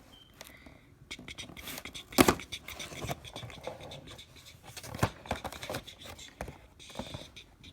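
Cardboard and plastic toy packaging being handled and pulled open: irregular scraping, scratching and clicking, with a sharp knock a little after two seconds.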